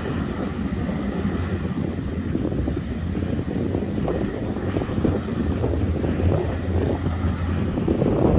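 Low, steady drone of a hovercraft running across the water in the distance, under wind buffeting the microphone.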